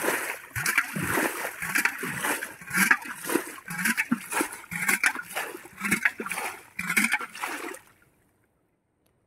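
Pond water splashing and sloshing in quick repeated strokes, about two a second, cutting off suddenly near the end.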